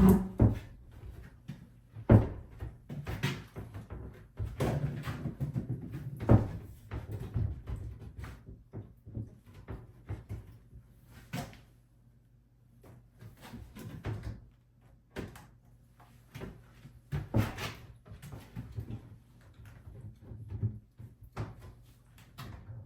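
Irregular knocks, clunks and rustling of hands-on work at a bathroom vanity cabinet as it is fitted. The sharpest knocks come right at the start and about two seconds in, with a quieter stretch around the middle.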